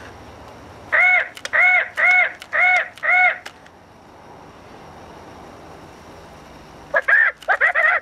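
Squawkers McCaw FurReal toy parrot's speaker playing parrot squawks: five short, identical calls, evenly spaced about half a second apart, then a quicker run of squawks starting near the end.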